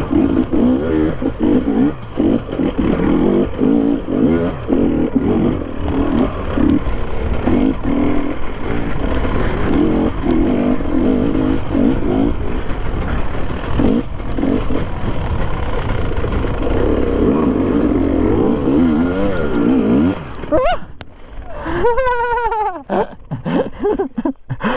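Enduro motorcycle engine running and revving on and off under load. The engine note drops away about 20 seconds in.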